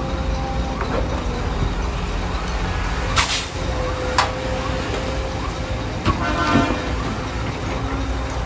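Heavy construction machinery engines running with a steady low rumble, with two sharp clanks about a second apart near the middle.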